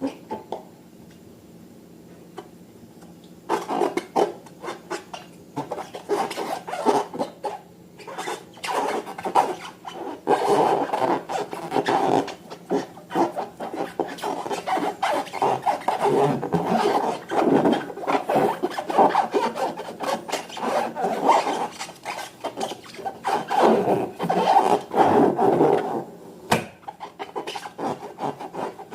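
Slime being mixed and worked by hand: a dense, uneven run of sticky rubbing and crackling that starts a few seconds in and eases off near the end.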